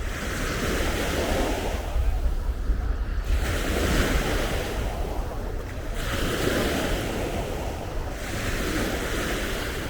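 Surf breaking and washing up the shore, the hiss of the waves swelling and fading every few seconds, with wind rumbling on the microphone.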